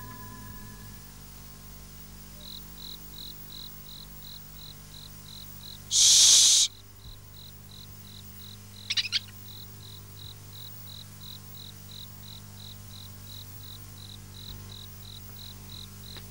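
Cricket chirping steadily, about three short chirps a second. About six seconds in a loud hiss lasts under a second, and around nine seconds there is a brief rattling flutter.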